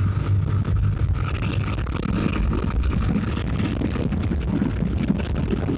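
Wind buffeting the microphone of a moving motorcycle in a strong crosswind, with the Bajaj Pulsar 180F's 180cc single-cylinder engine running underneath.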